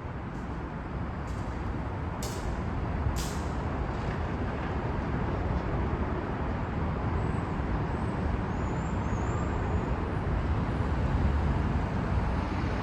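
Caltrain commuter train pulling into the platform, its rumble growing louder, with two short hisses of air brakes a couple of seconds in.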